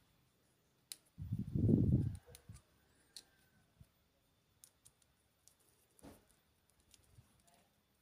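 Small clicks and scrapes of a plastic two-pin mains plug and a screwdriver being handled while the plug is reassembled on a power cord. A louder low rumble lasting about a second comes early on, about a second in.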